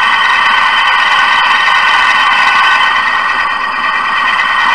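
Pillar drill running with a twist drill cutting into a hard brass bar, a loud, steady whine with several tones held together. The drill's cutting edges have been stoned to a small flat, so it cuts steadily without grabbing the brass.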